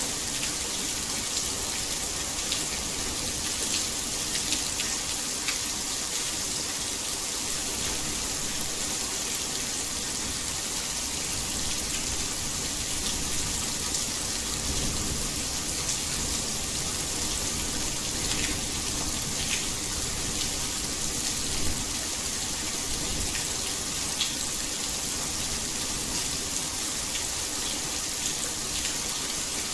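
Heavy rain falling, a steady dense hiss with scattered sharper drop hits.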